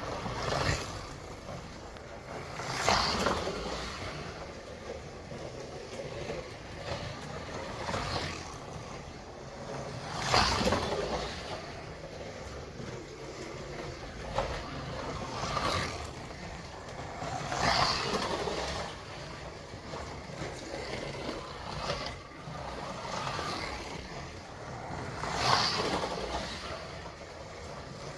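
A slot car lapping an electric racing track, its small motor whining and wheels and guide running along the track, swelling loud each time it passes close, about once every seven or eight seconds, with smaller swells between.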